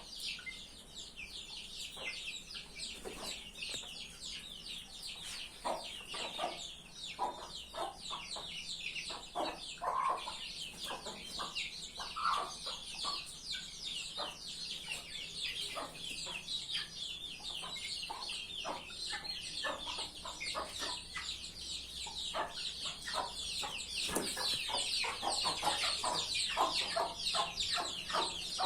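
A flock of hens clucking, many short calls overlapping one another over a dense, high-pitched chatter.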